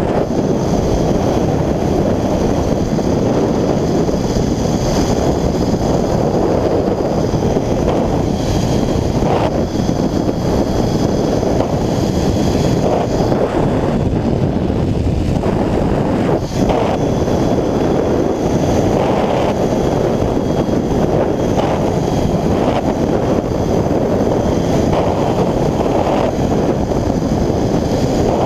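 Rushing wind buffeting the microphone during a fast zipline ride, with a faint, steady high whine from the trolley's pulleys rolling along the cable.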